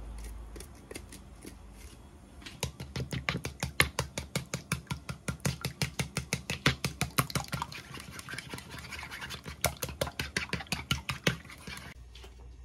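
Wooden chopsticks beating raw eggs in a bowl, clicking sharply against its sides about five times a second. The beating starts a couple of seconds in and stops about a second before the end.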